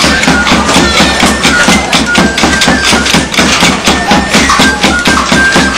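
Wooden sticks clacking rapidly in a pauliteiros stick dance, about five or six strikes a second. Under the sticks runs a high piping melody and a steady drum beat.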